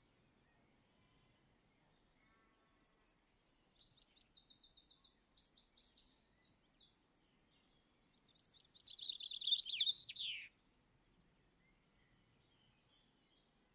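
A songbird singing a varied string of short, high-pitched phrases. About eight seconds in comes a louder run of rapid notes, which stops abruptly.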